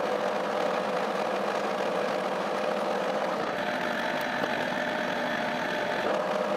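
1K62 screw-cutting lathe running with a steady hum and tone while the tool rough-turns a weld-built-up steel shaft held between centres. A faint higher whine joins about halfway and fades near the end.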